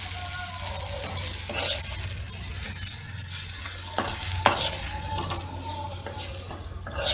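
Onion-tomato masala with fried fish pieces sizzling in a kadai while a spatula stirs it. There is a steady frying hiss with a few sharp knocks of the spatula against the pan, the loudest about four and a half seconds in.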